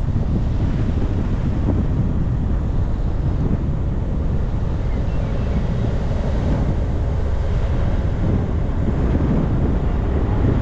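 Wind rushing over the microphone of a camera on a moving bus: a steady low rumble with a lighter hiss above it.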